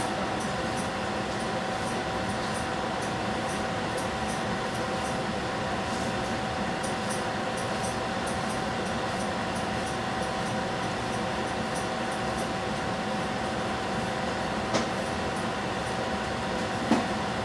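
Lidded frying pan cooking on a lit gas burner: a steady hiss with a constant hum under it, faint quick crackles, and two small clicks near the end.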